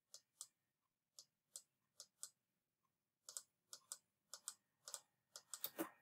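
Faint clicking of a computer mouse: short, sharp clicks, often in quick pairs, sparse at first and coming faster in the second half.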